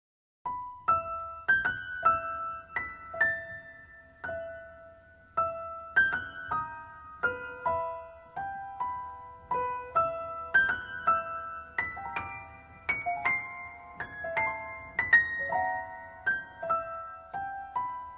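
Background music: a slow piano melody, single notes struck one after another and left to ring and fade.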